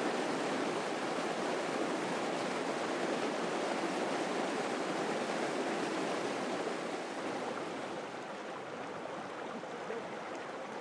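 Water rushing and splashing down a stone-lined channel in a steady torrent, easing off slightly near the end.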